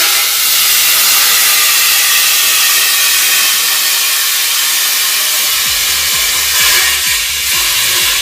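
Homemade MIG welder laying a weld bead: a steady, loud frying hiss of the arc that starts and stops abruptly.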